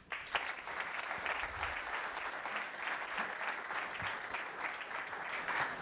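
An audience of many people clapping steadily, a dense patter of hand claps that thins out near the end.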